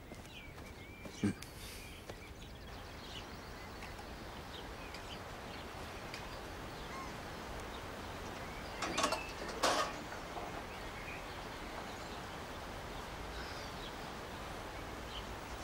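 Low steady outdoor background ambience with faint bird chirps. A short knock about a second in and two brief louder noises about nine and ten seconds in.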